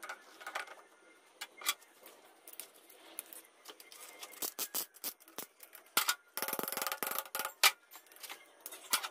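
Metal clicks and clinks as a piston held in a band-type ring compressor is handled and set against a cylinder bore of a Mitsubishi 4D56 diesel block. A fast run of clicks lasts under a second a little past the middle, followed by one sharp knock.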